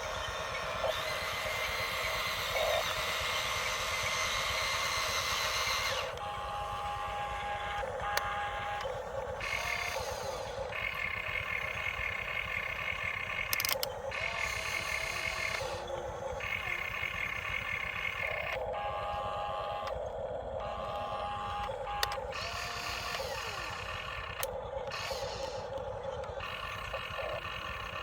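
Backup alarm on heavy earthmoving machinery beeping in long, repeated tones over a low engine rumble.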